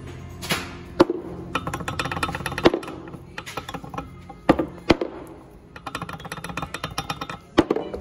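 Background music, with sharp metallic clacks and quick rattling runs as connecting rods on a Subaru boxer crankshaft are rocked and knocked by hand.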